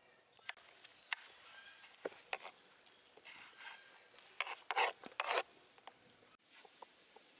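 Scattered light clicks and a few short, rough scraping or rustling noises, the loudest three close together just past the middle.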